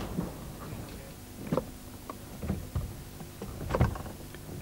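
Scattered knocks and clunks, a few spread over several seconds, with the strongest about a second and a half in and again near the end, from workers levering and shifting a timber-laden wagon with long bars, over a low steady rumble.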